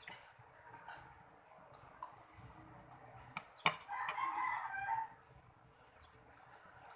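A rooster crowing once, faintly, about four seconds in, the call lasting about a second. Scattered sharp clicks come before it, the loudest just before the crow.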